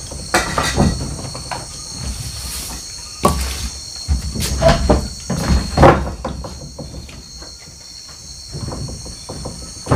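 Steady chorus of night insects chirring, with irregular knocks, rustles and scrapes over it, loudest between about three and six seconds in.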